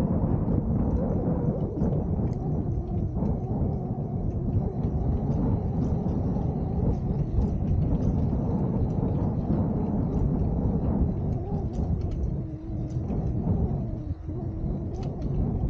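Steady low rumble of outdoor noise throughout, with faint ticks above it.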